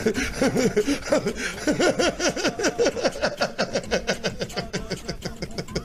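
A person laughing in quick, short bursts, over a fast, even run of clicks or knocks.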